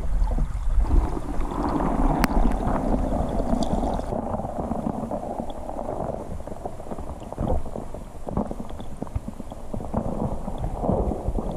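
Flowing stream water heard through an underwater camera housing: a muffled, steady rushing and gurgling over a low rumble, with scattered small clicks.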